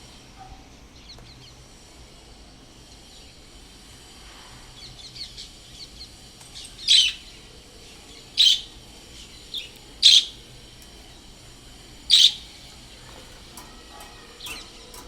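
Birds calling: four loud, short, high-pitched calls about one and a half to two seconds apart in the middle, with fainter chirps in between and near the end.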